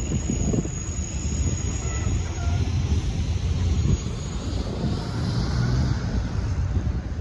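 Wind buffeting the microphone: a continuous, uneven low rumble that swells and dips in gusts.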